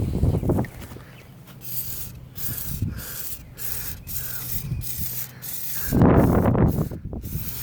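Aerosol chain lube sprayed onto an ATV drive chain in a run of short hissing bursts, about one every half second. About six seconds in, a louder, lower rubbing sound takes over briefly.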